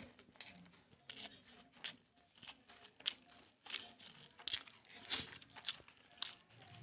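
Soft, irregular clicks and crackles of eating rice and curry by hand from a steel plate.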